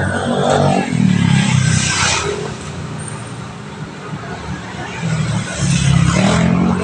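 A motor vehicle's engine running close by on a street, growing louder about a second in and again near the end.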